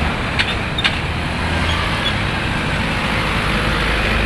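Steady road traffic noise of vehicles crossing the bridge, engines rumbling and tyres hissing, with two short clicks about half a second in.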